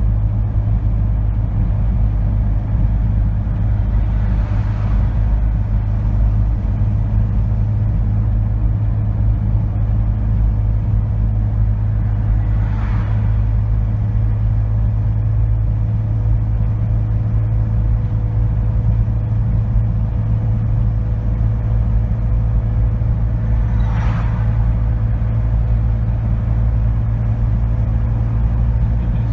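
Steady drone of tyre and engine noise inside a car cruising at highway speed, with a deep even hum and a faint steady tone above it. Three brief swells of hiss come and go.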